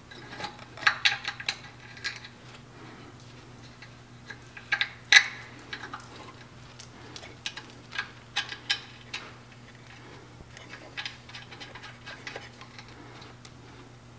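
Irregular small metal clicks, taps and clacks of hand tools and compressor fittings being handled during reassembly of the regulator fitting, the loudest clack about five seconds in. A faint steady low hum runs underneath.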